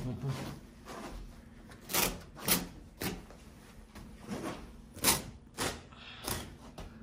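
Carpet being pulled up off a floor: a series of about seven short, sharp tearing rasps at uneven gaps, with quieter rustling of the carpet in between.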